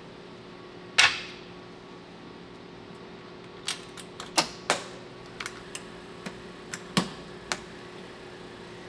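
Metal clanks and clicks of a stainless-steel lab oven's doors being shut and latched: one sharp clank about a second in, then a run of lighter clicks as the toggle clamp snaps over and the lever handle is turned. A steady low hum runs underneath.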